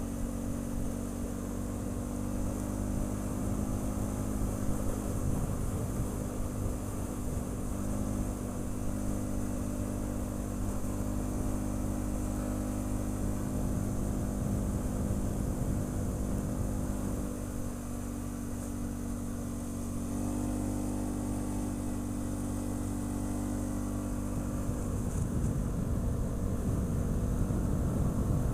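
ATV engine running steadily while riding, a continuous even engine drone that eases off briefly about two-thirds of the way through, then picks back up.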